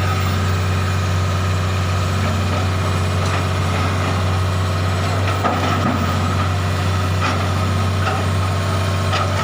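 Diesel engine of heavy earthmoving equipment running steadily at a constant low drone, with a few faint knocks over it.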